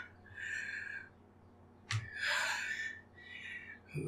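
A man panting heavily, three loud breaths about a second apart, acting out a character who is out of breath; a short click just before the second breath.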